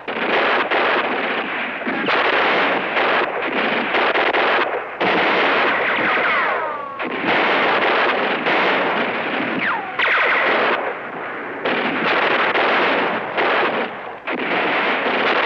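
Heavy battle gunfire in long bursts of automatic fire, broken by brief pauses, with a couple of short falling whines about six and ten seconds in.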